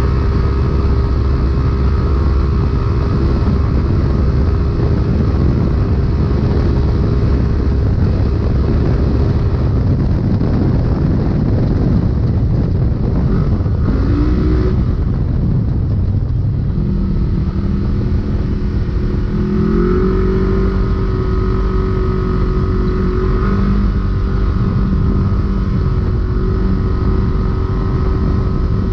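Polaris RZR UTV engine running hard at steady high revs, heard from inside the cab over a heavy rumble of rough ground. Around the middle the steady note breaks up for several seconds, then settles and steps up in pitch about two-thirds of the way in.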